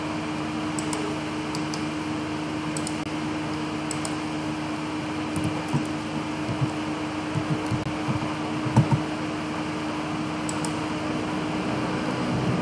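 Computer keyboard typing and mouse clicks, scattered light taps that cluster in the middle, over a steady fan hum.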